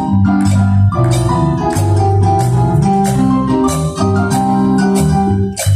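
Instrumental music: a melody of short, sharply struck notes over sustained bass notes.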